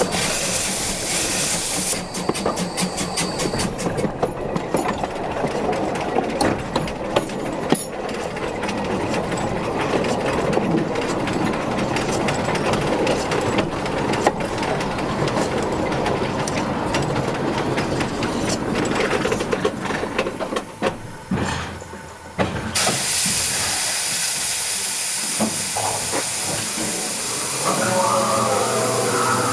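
Steam locomotive shunting: a rumble of wheels on rail with clicks, which dips briefly about 21 seconds in as it comes to a halt. About 23 seconds in, a loud steady hiss of escaping steam starts suddenly, and a pitched sound joins near the end.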